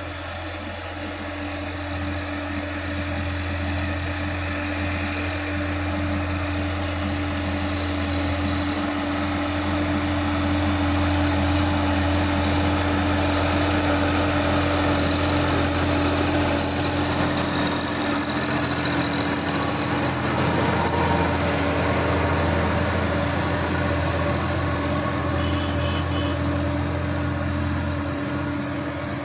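Sonalika DI 50 RX tractor's diesel engine running steadily while working a rear-mounted rotary tiller through the soil. It grows louder as the tractor comes close and eases off near the end as it moves away.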